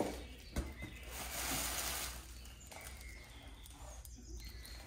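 Cats playing with a wand toy: a sharp tap about half a second in, then a second and a half of rustling, dying down to faint scuffles.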